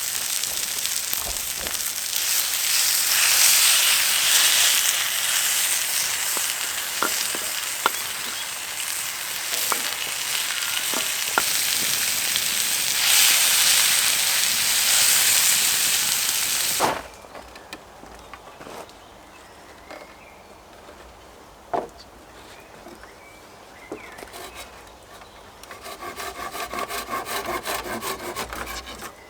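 Food sizzling in a pan over an open fire, a loud steady hiss with scattered pops, cutting off abruptly a little over halfway through. After that, a few soft knocks, and near the end a quick run of rhythmic rasping strokes.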